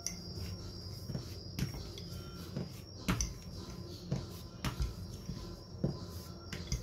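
A rolling pin rolling out a round of flour dough on a countertop, with irregular knocks as the pin bumps and is set down on the counter, the strongest about three seconds in and again near five seconds. A steady thin high tone runs underneath.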